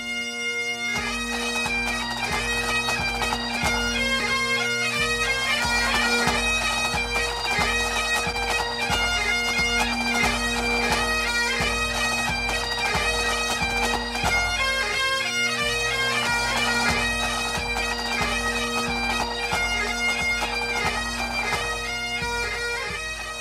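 Highland bagpipes playing a lively tune over steady drones, with a steady drum beat underneath.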